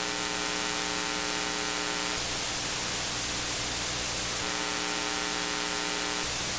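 Mixing-console mic-preamp noise at +60 dB gain: a steady hiss throughout, with a buzzy 60-cycle hum on top that cuts out about two seconds in, comes back a little past halfway and drops out again near the end. The buzzing hum is the Allen & Heath QU16's; the plain hiss is the Behringer X32's.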